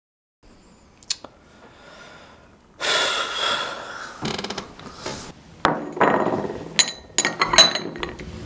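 A person sipping noisily from a small porcelain cup, several slurps and breaths one after another, then a few sharp clinks of porcelain near the end as the cup goes down on its saucer.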